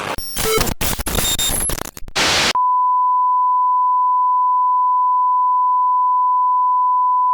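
Harsh, choppy broadcast static that cuts in and out. About two and a half seconds in it gives way to a single steady, loud test tone, the off-air tone of a station that has gone dark.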